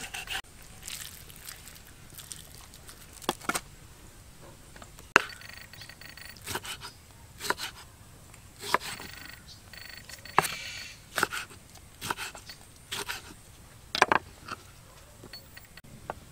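Short, sharp scrapes and clicks, about a dozen at uneven intervals of roughly a second, with quiet between them.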